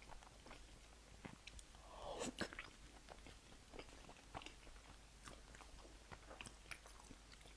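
A person chewing food close to the microphone: a run of soft, quick mouth clicks and smacks, with one louder, noisier stretch of eating about two seconds in.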